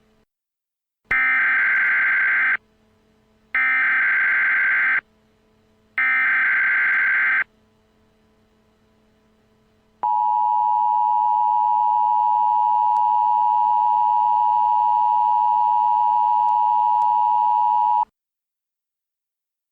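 Emergency Alert System tones. First come three identical buzzy data bursts of the SAME header, each about a second and a half long and about a second apart. Then the two-tone EAS attention signal sounds as a steady, harsh dual tone for about eight seconds and cuts off abruptly.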